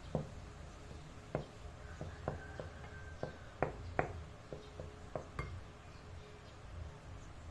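Wooden spoon stirring flour in a glass mixing bowl, knocking and clinking against the glass about a dozen times at an uneven pace, stopping about two thirds of the way in.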